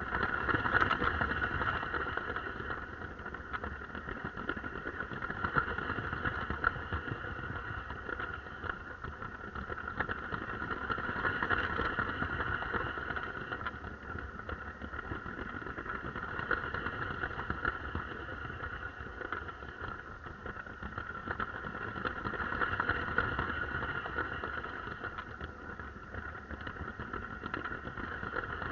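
Lego train running, heard from a camera riding on it: a steady whine from its small electric motor and gears over a rattle of wheels on plastic track, growing louder and softer every few seconds.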